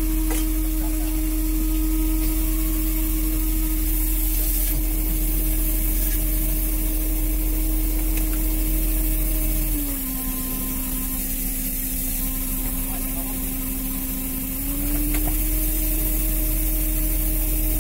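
Fishing boat's engine and line-hauler machinery running with a steady drone while the longline is hauled. About ten seconds in the pitch dips and the sound gets a little quieter, then it comes back up about five seconds later.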